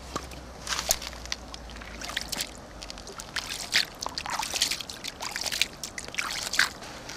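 Shallow water sloshing and splashing in irregular bursts as a large mirror carp is moved about in a net at the water's surface.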